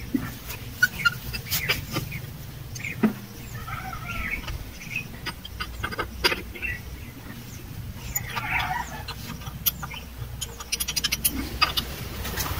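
Sharp metallic clinks and clicks of a spanner working the wheel-hub nuts of a power tiller, with a quick run of clicks a little before the end. A hen clucks in the background about four seconds in and again about eight seconds in.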